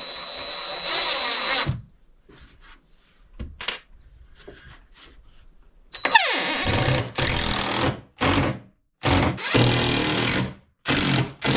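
Cordless drill driving screws in a string of short bursts, with light tapping and handling clicks in a quieter stretch between them.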